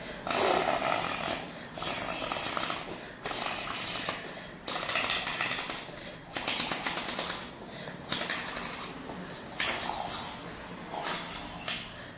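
Repeated blowing through a drinking straw into slime to inflate a bubble: about eight breathy puffs, one every second and a half or so, some with a crackly, bubbling texture.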